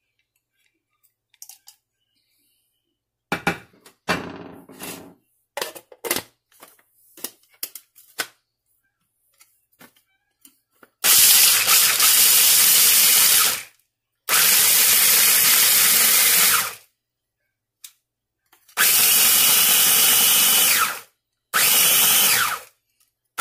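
Scattered light clicks and knocks, then an electric food processor pulsed four times in runs of about two to three seconds, coarsely chopping cashews, almonds and pistachios.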